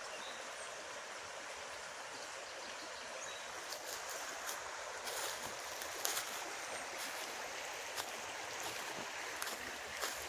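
Shallow river running over a rocky bed, a steady rush of water, with a few short sharp clicks over it, the loudest about six seconds in.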